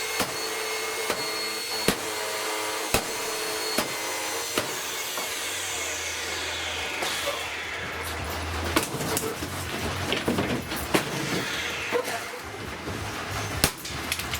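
Dirt Devil vacuum cleaner motor running with a steady whine, with sharp knocks about once a second. About halfway through the whine drops away into an uneven rattling clatter.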